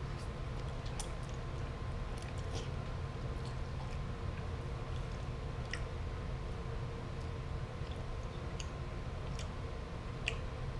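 A person chewing a mouthful of chewy rice noodles, with small irregular wet mouth clicks. Near the end there is a sharper click as chopsticks touch the ceramic bowl.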